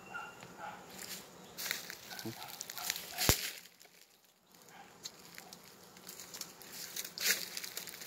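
Crackling and crunching of dry leaf litter under shifting feet, with one sharp knock about three seconds in.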